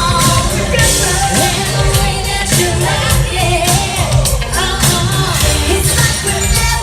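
Live pop music at a concert, with singing over a steady drum beat and heavy bass, heard through the arena's sound system.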